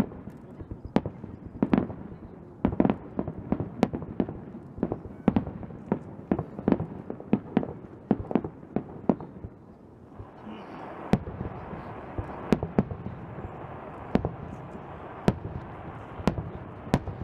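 Fireworks display: aerial shells bursting in a rapid run of sharp bangs, several a second at times. A steady hiss joins in from about ten seconds in.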